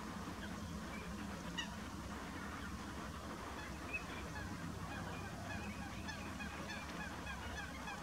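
A flock of Eurasian teal calling: a continuous chorus of many short, high calls, busier in the second half, over a low steady rumble. Two brief ticks stand out, about one and a half seconds in and again about four seconds in.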